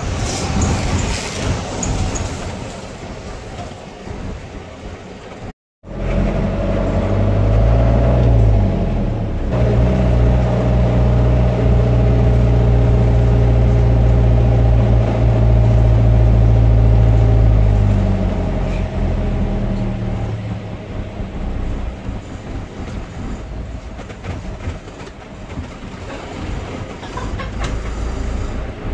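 Street traffic. After a brief cut, a motor vehicle's engine runs loud and close, its pitch dipping and rising once, then holding steady for about eight seconds before fading away.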